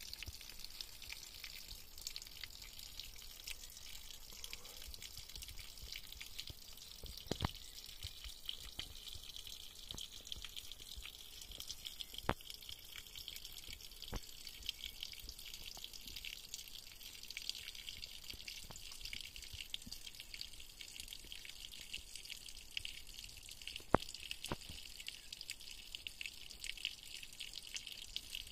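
Thin stream of spring water trickling and splashing onto wet rock and moss, a steady light patter, with a few sharp clicks scattered through, the loudest about 24 seconds in.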